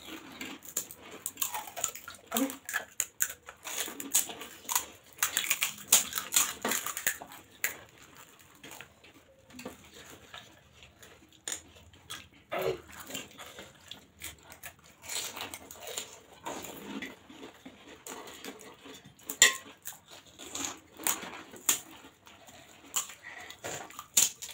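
Irregular crackling clicks of crisp pani puri shells being cracked open with the fingers and eaten, with spoons clinking against stainless-steel bowls.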